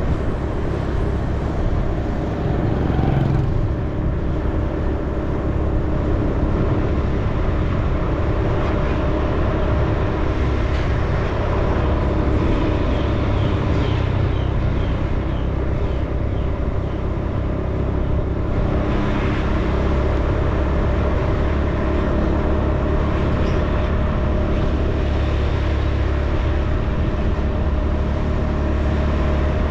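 A moving road vehicle's engine running steadily, mixed with wind and road noise on the microphone: a constant low drone with a steady hum and no changes in pace.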